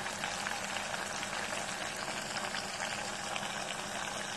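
A block of tofu deep-frying in hot oil in a pot, the oil sizzling and bubbling steadily with fine crackles.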